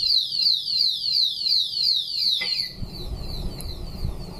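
Tamper siren of an electronic alarm padlock sounding: a rapid string of falling electronic sweeps, about four a second, which weakens about two and a half seconds in.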